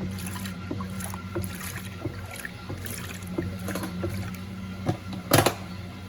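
Electrolux LTC07 top-load washing machine agitating a load of towels: a steady motor hum under water sloshing and small irregular clicks, with one louder splash or thump about five seconds in.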